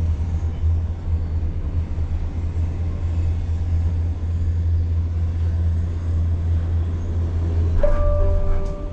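Steady low rumble inside a Disney Skyliner gondola cabin riding along its haul cable. Near the end, brief steady whining tones come in for about a second.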